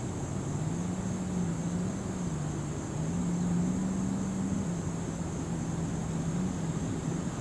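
Distant Union Pacific diesel locomotives of an approaching freight train: a low engine drone whose pitch wavers up and down.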